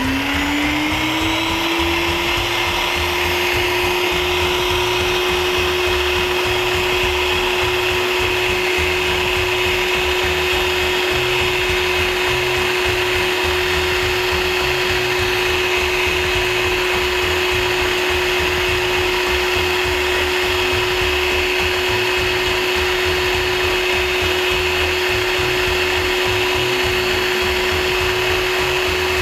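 Electric meat grinder motor running while grinding soft cooked liver pâté. It comes up to speed in the first couple of seconds, its pitch rising, then runs on as a loud, steady hum.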